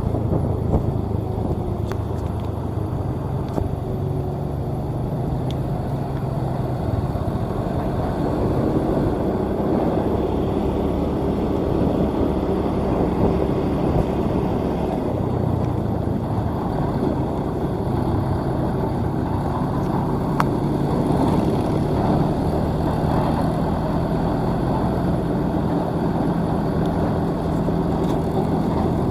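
Maxxi J Automatic New combine harvester's diesel engine running steadily as the machine travels along the road. The engine note shifts slightly a few times.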